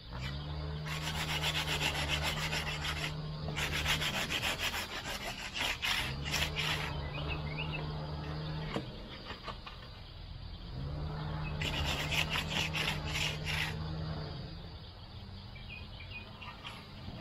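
Hand-finishing tool rubbing and scraping over the surface of setting concrete in quick back-and-forth strokes. It comes in three spells with short pauses between, and a steady low hum runs under each spell.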